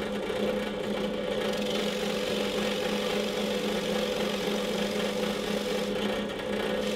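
Benchtop drill press motor running steadily, a constant hum with no change in pitch.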